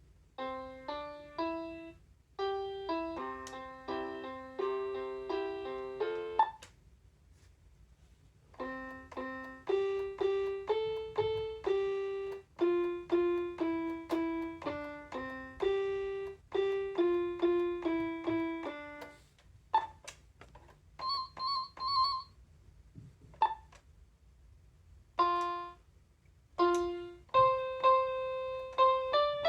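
Children's battery-powered toy electronic keyboard playing a piano-like voice: single notes and simple two-note phrases, with short pauses between the tunes. A brief fast-warbling tone sounds about two thirds of the way in.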